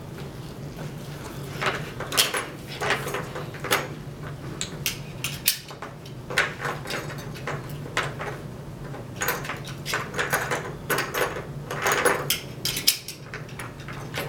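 Backboard straps being fastened and tightened on a plastic spine board: the buckles and webbing give repeated clicks and rattles for most of the time, in irregular clusters.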